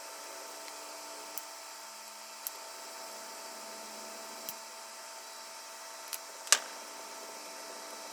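A few sharp, isolated clicks from small tools and parts being handled during soldering kit assembly, the loudest about six and a half seconds in, over a steady faint hiss and hum.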